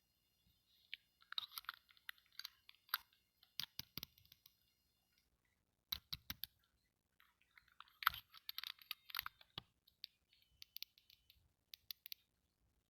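Small plastic toy doctor-set pieces and their plastic packaging being handled: crinkling and clicking in short bursts, with a few sharper clicks of plastic on plastic.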